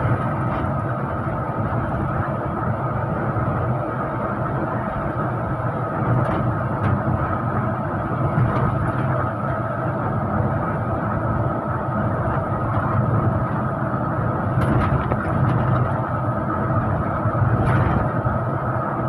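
Steady engine and road noise of a moving intercity bus, heard from inside the cabin, with a few faint clicks.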